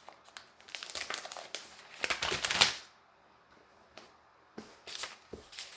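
Packaging being pulled off a new keyboard case: irregular crinkling and rustling, loudest a little past two seconds in, then a short lull before more crinkling and a few sharp handling clicks.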